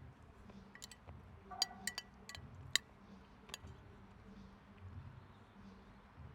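Cutlery clinking against a dish in a short run of sharp clicks during the first half, the loudest about three seconds in, as food is scooped up while eating.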